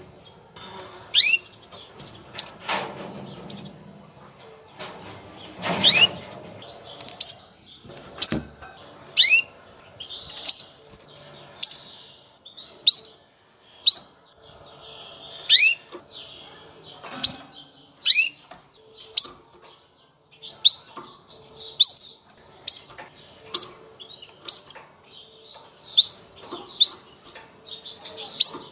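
Female canary giving its mating call: short, sharp chirps repeated about once a second, many of them quick downward-sweeping notes. It is the call used to bring male canaries into breeding condition.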